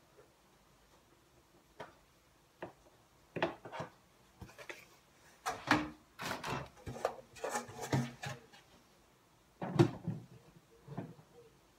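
Small plastic plant pots and a clear plastic propagator lid being handled and set in place: a scattered series of knocks, clicks and rattles, busiest in the middle, with one sharp knock near the end.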